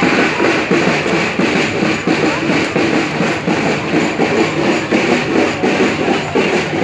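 Percussion ensemble of drums playing a fast, dense, continuous rhythm.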